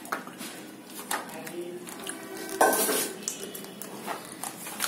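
Metal cooking utensils clinking against a metal pan in a series of sharp knocks. The loudest clatter comes about two and a half seconds in and rings briefly.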